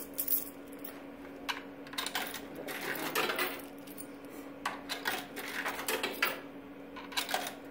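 Coins dropped one after another into a combo vending machine's coin slot, clicking and clinking irregularly as the coin mechanism takes them in to fill the change tubes. A steady hum from the machine runs underneath.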